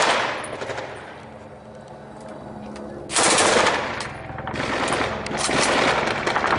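Bursts of automatic gunfire. The fire dies away after the first moment, a loud burst comes about three seconds in, and rapid fire builds again near the end.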